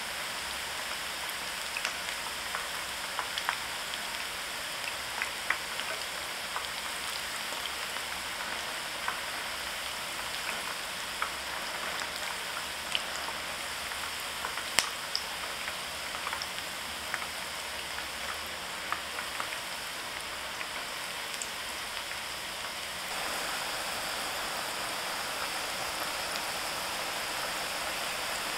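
Vegetable kakiage fritters deep-frying in a pan of oil: a steady sizzling hiss with scattered small pops and crackles. The sizzle gets a little louder late on.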